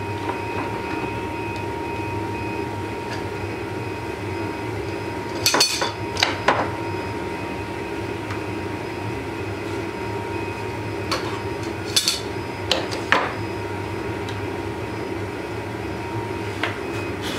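A row of gas torches burning steadily against a cutlass blade clamped in a jig, heating the blade for hardening. Sharp metallic clicks and knocks cut in as the metal torch holders are handled: a cluster about six seconds in, several more around twelve to thirteen seconds, and one near the end.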